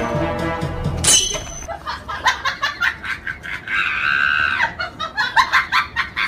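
Music stops about a second in. Then a person laughs in a run of quick repeated 'ha' sounds, about three a second, with a drawn-out high-pitched shriek in the middle.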